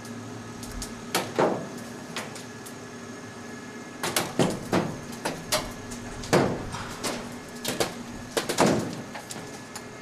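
Heavy steel clanking and banging, about a dozen irregular hits with short ringing tails, from a steel scoring-pylon section being handled on a crane hook. A mobile crane's engine runs steadily underneath.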